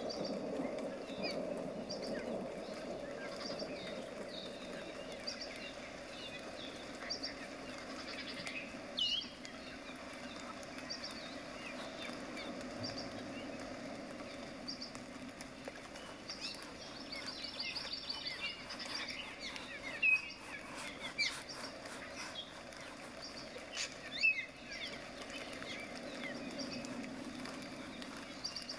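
Flat bristle brush scrubbing acrylic paint on a palette, then stroking it across a stretched canvas with a dry scratchy sound. Small birds chirp throughout, with a few louder calls.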